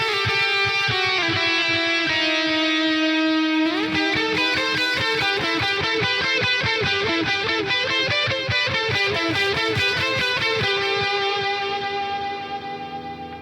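Dean Avalanche guitar being played: held notes, a slide about four seconds in, then quick picked notes that fade out near the end.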